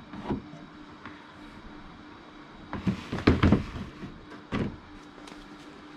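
Hard plastic toolbox being opened: a latch clicks just after the start, then a cluster of knocks and clatter about three seconds in as the plastic lid and parts are handled, and one more knock a second later.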